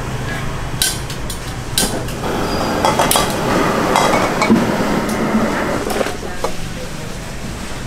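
Metal spatula clanking and scraping against a wok during stir-frying over a gas flame, with a few sharp clanks about a second apart and a stretch of sizzling in the middle.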